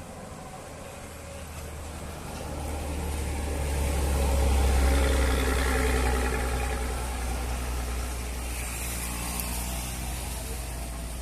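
A heavy road vehicle's engine climbing a hill as it passes. It grows to a deep rumble that is loudest about five seconds in, then fades.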